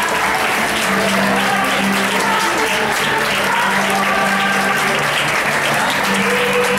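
A large audience clapping steadily, with music playing underneath in long held notes.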